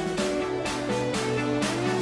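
Instrumental background music: a melody of held notes over a steady beat, about two beats a second.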